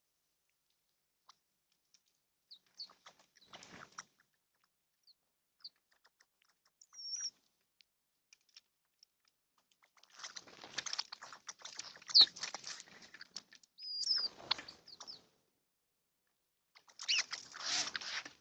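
Small birds at a feeder: three bursts of wing fluttering and scrabbling, with short high chirps scattered through and laid over them.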